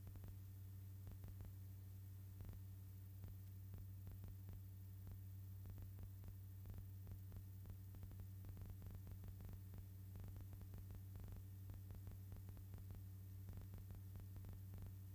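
Faint steady electrical hum with scattered clicks and crackle and nothing else: the noise floor of a silent archival film transfer.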